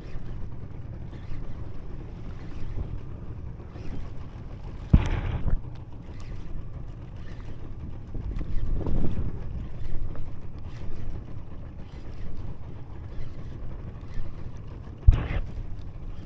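Wind buffeting the microphone aboard a small fishing boat at sea, over a steady low rumble. Two sharp knocks come about five seconds in and near the end.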